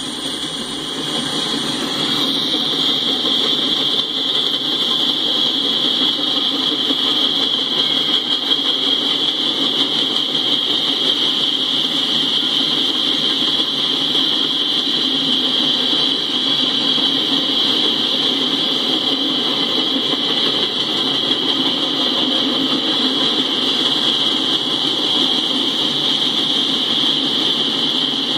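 Norfolk Southern freight train cars rolling past on the rails: a steady rumble and hiss with no distinct clickety-clack, heard through a live camera's microphone.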